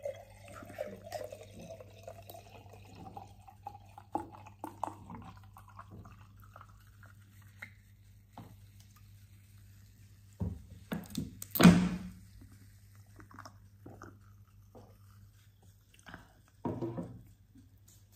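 A dark drink poured into a glass jar mug, the pitch of the filling rising steadily as the mug fills. Then the full mug is handled, with a few knocks and one loud knock past the middle.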